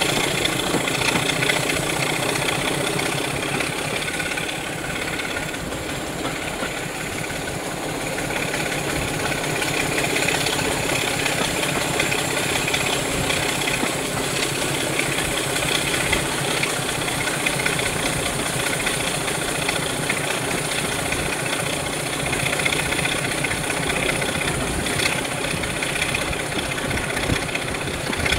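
A Class 26 diesel locomotive's Sulzer six-cylinder engine running steadily at the head of a moving train, heard from an open window of a carriage behind it, mixed with the steady rolling and rush of the train. The sound dips slightly about five seconds in, then comes back up.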